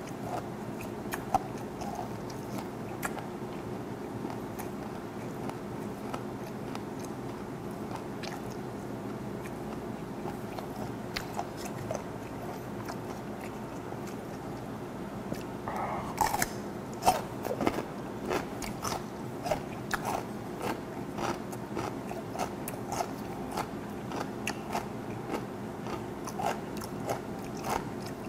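Close-miked chewing of fermented skate and kimchi: wet crunching and mouth clicks, denser and louder from about halfway through as a fresh bite goes in. A steady low hum sits under it.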